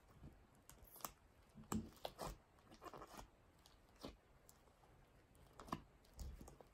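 Faint, irregular sticky squishes and soft clicks of slime being kneaded by hand in its tub, as clay is worked into the slime base to turn it into butter slime.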